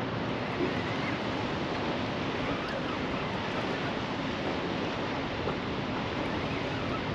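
Steady rush of wind and river water, with wind buffeting the microphone.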